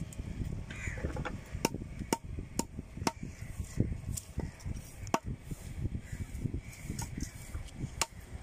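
Sharp knocks of a steel fish-cutting knife striking a wet wooden chopping block as a fish is cut, coming irregularly, often about twice a second, over a low background rumble.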